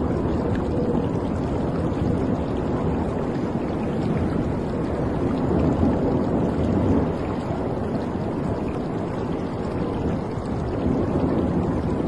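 Water rushing and splashing steadily against the hull of a moving cruise ship, with a low rumble underneath.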